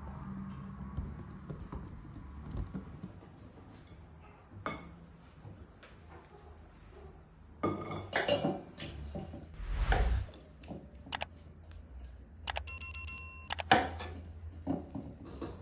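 A steady, high insect drone sets in about three seconds in and carries on. Over it comes kitchen work: scattered knocks and clatter of utensils on bowls, then a short run of ringing metal-on-glass clinks, with a knife cutting on a wooden board near the end.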